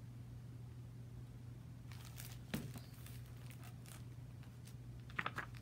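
Pages of a large hardcover picture book rustling and crinkling as the book is handled and turned, with a sharp knock about two and a half seconds in and a short flurry of rustles near the end, over a steady low hum.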